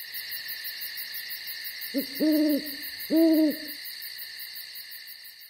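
An owl hooting twice: a short note running into a longer hoot about two seconds in, then a second long hoot about a second later, over a steady high-pitched background that fades away near the end.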